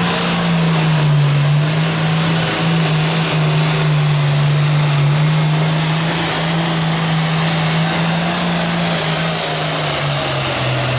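Limited Pro Stock pulling tractor's turbocharged diesel engine running at full throttle under heavy load, pulling the weight sled down the track. It holds one steady high-revving note that sags briefly about a second in and again near the end.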